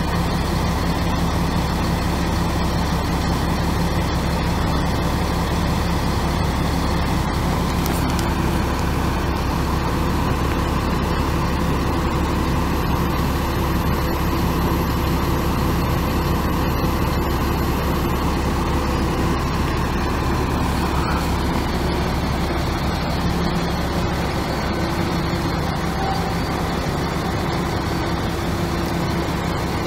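Caterpillar C7 7.2-litre inline-six turbo diesel of a Chevrolet C8500 bucket truck idling steadily, with a deep low rumble.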